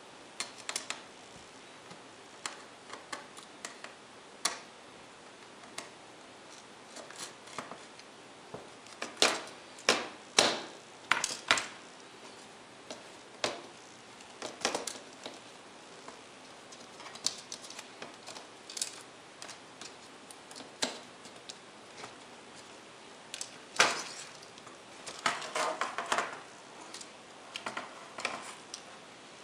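Irregular small clicks, taps and light clatter of a netbook's plastic case and metal hinge parts being handled with a screwdriver during disassembly, with louder runs of knocks around ten seconds in and again from about twenty-four seconds.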